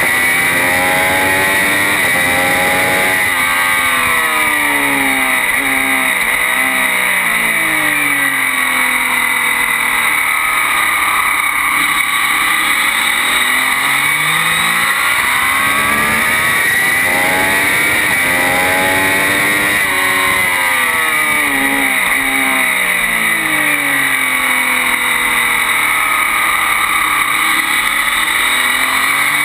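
Triumph Daytona 675 three-cylinder engine at full throttle on track, revs climbing in steps through upshifts, then falling away twice as it brakes and downshifts for corners, over heavy wind noise.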